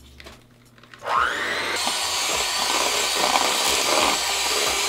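Electric hand mixer switched on about a second in, its motor whining up to speed and then running steadily as its beaters mix eggs and sugar in a plastic bowl.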